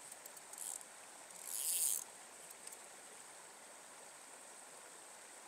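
Stream water flowing steadily, with two short splashes in the first two seconds, the second the louder, as a small brown trout is let back into the water.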